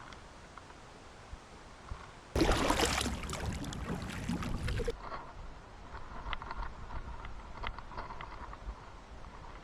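Sounds from a fishing kayak on the water: quiet at first, then a sudden loud rushing noise about two seconds in that lasts about two and a half seconds and cuts off, followed by scattered light clicks and knocks.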